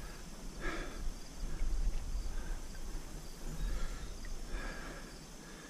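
Faint outdoor ambience: scattered short chirps over a steady low rumble.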